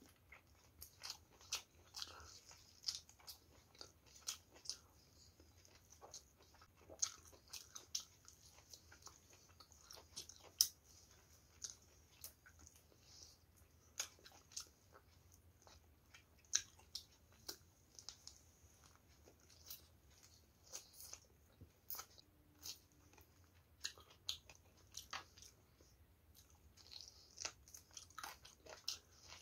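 Chewing and biting on a chicken drumstick and rice, with many short, irregular mouth clicks and smacks.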